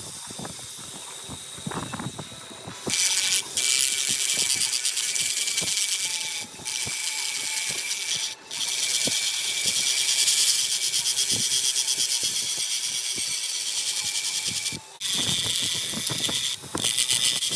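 Small mandrel-mounted grinding disc grinding a forged steel keris blade: a loud, steady, high hiss with a faint whine. It starts about three seconds in and breaks off briefly a few times.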